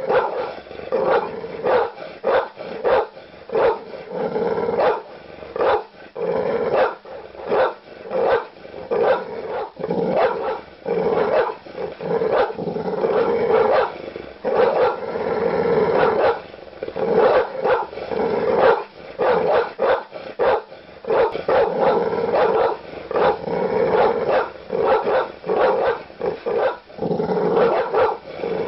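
Large dog barking aggressively with deep barks, in quick runs of several barks separated by short pauses.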